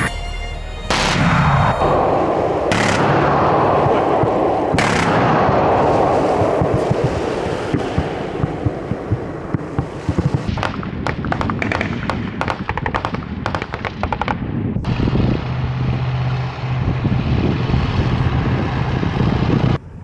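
A truck-mounted launcher firing three times, about two seconds apart. Each shot is a sharp blast followed by a long, fading rush. From about ten seconds in come rapid bursts of automatic gunfire, then a steady low hum.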